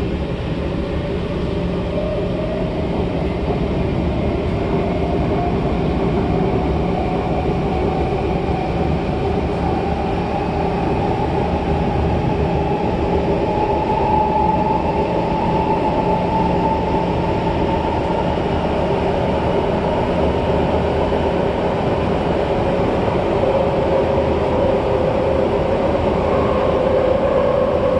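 Cabin sound of a C651 metro train accelerating away from a station: its traction motors whine, rising slowly in pitch through the first half, over a steady rumble of the wheels on the track.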